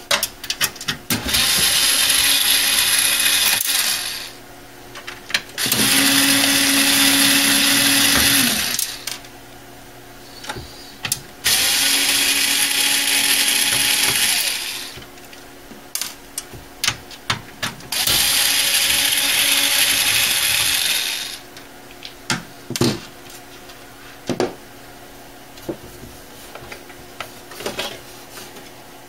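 Handheld power driver running in four bursts of about three seconds each, backing out the screws that hold a computer power supply in its case. After the last burst, scattered sharp clicks and knocks.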